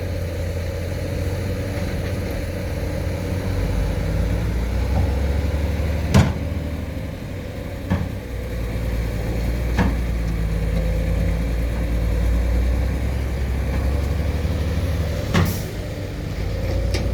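Excavator's diesel engine running steadily with a constant whine over it, broken by four short, sharp clanks about 6, 8, 10 and 15 seconds in.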